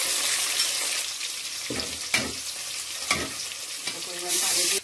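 Sliced tomatoes and fried onions sizzling in hot oil in a metal pot, stirred with a metal spatula that scrapes against the pot a few times. The sizzle gets louder near the end.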